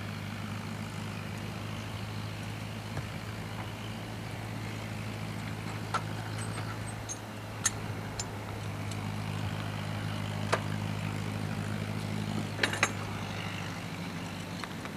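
A steady low engine hum, like a motor vehicle idling, with a few scattered sharp clicks.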